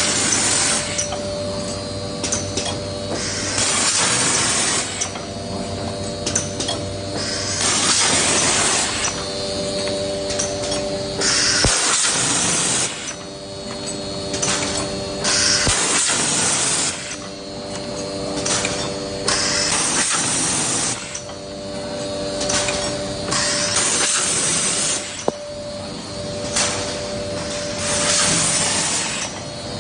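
Automatic ketchup packing machine running: a hiss about a second long repeats about every four seconds over a steady machine hum, with an occasional sharp click.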